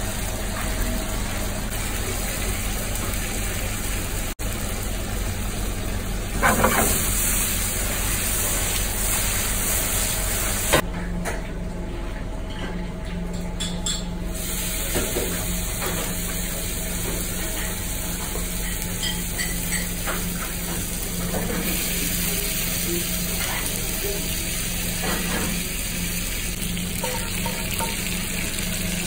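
Anglerfish and vegetables sizzling in a frying pan, with occasional clinks of a spoon against the pan and serving bowls, over a steady low hum.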